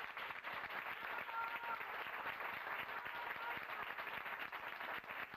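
Audience applauding a flamenco dance number, dense clapping that cuts off abruptly near the end.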